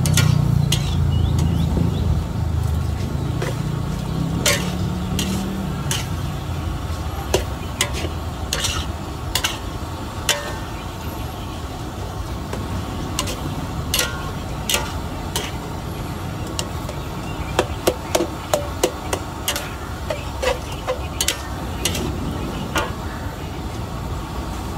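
Metal spatula scraping and knocking against a large aluminium wok as glass noodles and cabbage are stir-fried, in irregular sharp clicks that come quicker in the second half. Under it is a steady low rumble, with an engine note that fades out over the first five seconds or so.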